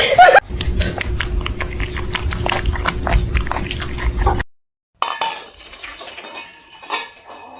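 Quick, irregular clinking and clicking of hard objects over a steady hum, cut off abruptly partway through, followed by fainter clicks.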